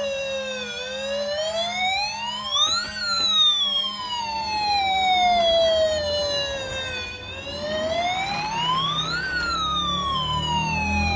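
Battery-operated toy fire truck's electronic siren wailing: the pitch rises over about two seconds, then falls slowly over about four, twice.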